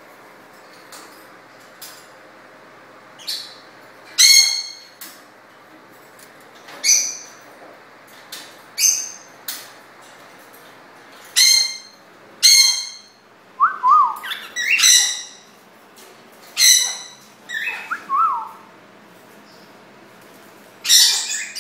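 Cockatiels calling: about eight loud, shrill contact calls spaced a second or several apart, with a couple of short whistled notes between them.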